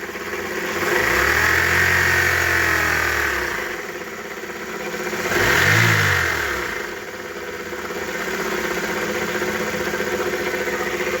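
Chevrolet Aveo's F14D3 four-cylinder petrol engine revved twice, once long and once in a short blip, then settling back to idle. Through it runs the loud knocking and rattling whose source the owner cannot find; he suspects the water pump, a pulley or the exhaust silencer.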